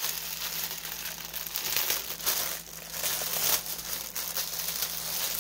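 Clear plastic packaging bag crinkling as it is handled, in uneven crackles.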